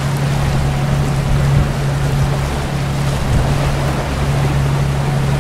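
Boat engine running steadily with a constant low drone, under the rush of water and wind buffeting the microphone.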